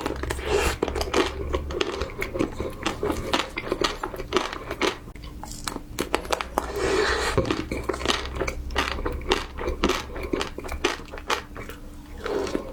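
Close-miked chewing of crisp food: a dense run of crunches and small crackles as the food is bitten and chewed.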